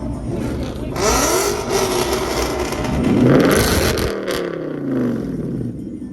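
A car engine revved several times at a standstill, its pitch climbing and dropping with each blip; the last rev falls away about four seconds in.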